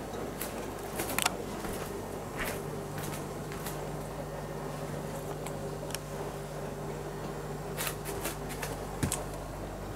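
Steady low hum with scattered soft rustles and clicks, the sharpest about a second in and again about nine seconds in.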